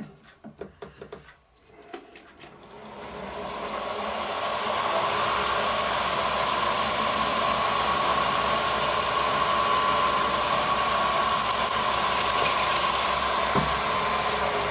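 A few small handling clicks, then about two seconds in the milling machine's spindle starts and runs up to a steady whine while a twist drill bores a mounting hole in the metal DRO scale extrusion. A higher hiss from the cutting stops a couple of seconds before the end, with the spindle still running.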